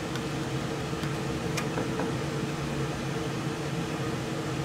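Gas furnace blower fan running, a steady hum with a faint click about a second and a half in. The blower is running before the system has fired up.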